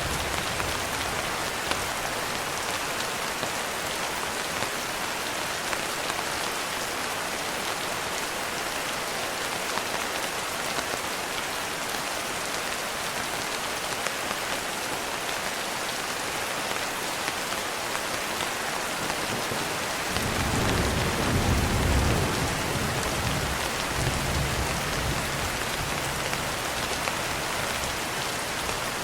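Steady rain falling, an even hiss of many drops. About two-thirds of the way in, a low rumble of distant thunder swells, peaks briefly and fades slowly.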